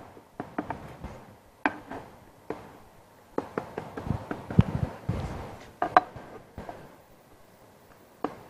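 A knife cutting a baked namoura (semolina cake) in a baking pan: irregular clicks and taps of the blade against the pan and through the crust, with a louder stretch of scraping and knocking about halfway through.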